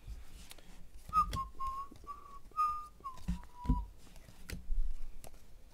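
A person whistling a short phrase of about five notes around one pitch, the last note held longest and dipping slightly at the end. Soft clicks and taps of trading cards being handled sound around it.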